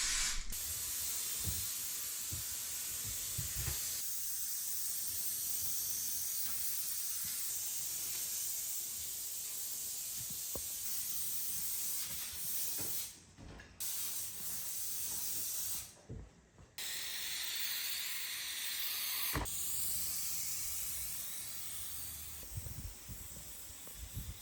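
Spray adhesive for vinyl plank flooring hissing steadily from the nozzle as it is sprayed over the subfloor, breaking off briefly twice, with a few faint clicks.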